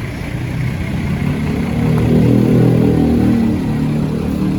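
Bus diesel engine revving up as the bus pulls by, rising a little in pitch, loudest midway, then easing off.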